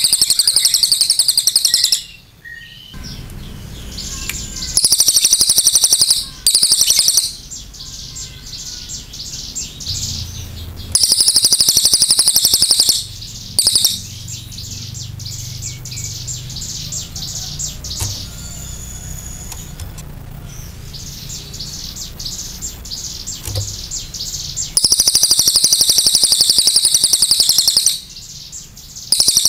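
Crested jay (cililin) giving loud, high, rapid rattling calls in several bursts of one to three seconds each, with quieter gaps between them.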